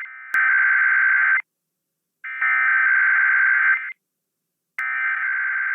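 Emergency Alert System SAME header: harsh, buzzy digital data tones sent in bursts of about a second or more, with about a second of silence between. Three bursts, the last running on past the end.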